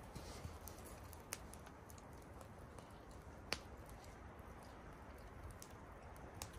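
A few faint, sharp clicks over a quiet background, the clearest about three and a half seconds in.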